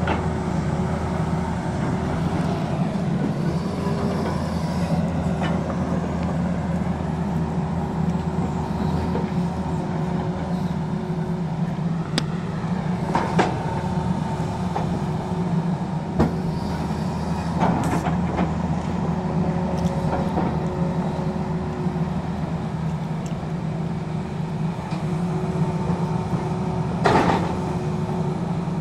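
Tata Hitachi tracked hydraulic excavator working: the diesel engine and hydraulics run steadily, with a faint tone that comes and goes as the arm and bucket move. Several short sharp knocks of bucket and rock break through, the loudest near the end.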